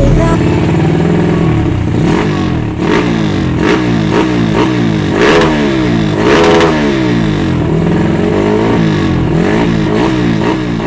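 Bored-up Kawasaki KLX single-cylinder four-stroke engine with a 61 mm piston, larger valves, a performance cam and a PE28 carburettor, breathing through a Norifumi Roket 4 stainless aftermarket exhaust. It is revved up and down repeatedly, its pitch climbing and falling several times with quick throttle blips.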